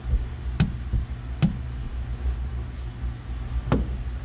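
A hard tint squeegee knocking against the truck's rear window glass as the film is squeegeed: three sharp knocks over a steady low hum.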